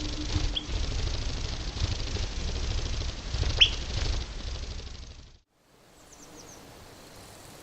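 Wind buffeting the microphone, with two short, sharp bird chirps falling in pitch, the second one loud. About five seconds in the sound cuts to quiet outdoor hiss with a few faint, very high bird notes.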